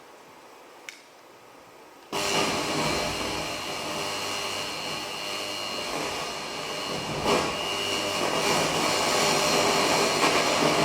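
Quiet room tone with one faint click, then about two seconds in a dense, loud noise drone with steady high tones cuts in abruptly and keeps going: the live experimental sound score of the performance.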